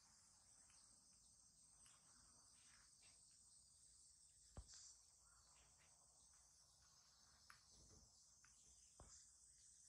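Near silence: faint, steady insect chirring, with a few soft clicks, the sharpest about halfway through.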